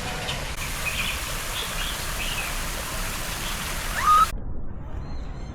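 Birds calling over a steady rush of running water, with short chirps throughout and a loud rising call about four seconds in; the rushing noise cuts off abruptly just after.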